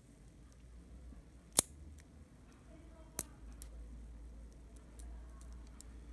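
Small metal clicks from the removed shutter gear mechanism of a Contarex camera being worked by hand: one sharp click about one and a half seconds in, a second softer click near the middle, then a few faint ticks.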